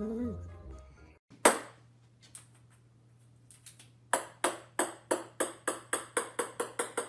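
A small ball bouncing on a hard wooden floor. There is one sharp ringing click about a second and a half in. From about four seconds a run of ringing bounces comes about three a second, getting closer together and fainter. At the very start, a dog's drawn-out vocal sound fades out.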